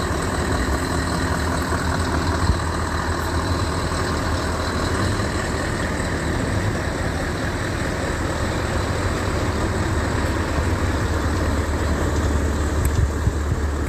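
Heavy diesel truck engine idling, a steady low rumble with no revving.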